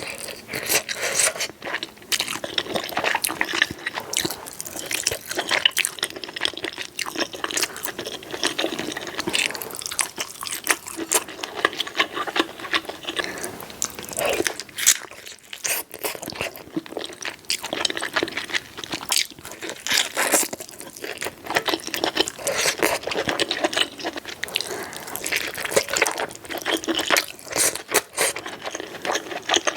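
Close-miked eating of soft-boiled eggs: wet chewing and lip smacks, a dense run of small clicks with a brief pause about halfway.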